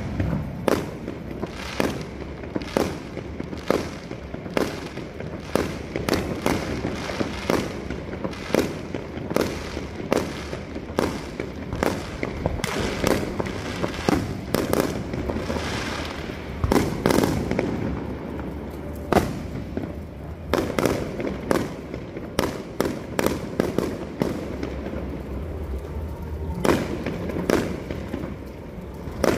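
Fireworks display: a dense run of shell bursts going off several times a second, with steady crackling between the bangs.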